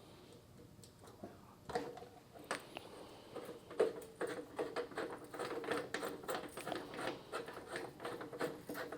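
Metal cap being screwed onto a thermocouple's terminal head by hand: a run of small rapid scrapes and clicks, starting about two seconds in.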